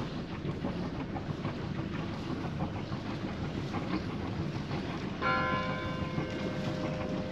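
A single bell strike about five seconds in, ringing on and fading over a couple of seconds, over a steady low rumbling noise.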